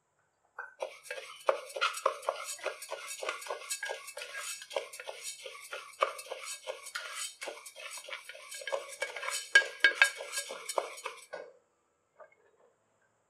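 Dry split moong dal being stirred with a wooden spatula in an aluminium pressure cooker: quick, repeated scraping strokes with the lentils rattling against the pot. It stops about a second and a half before the end.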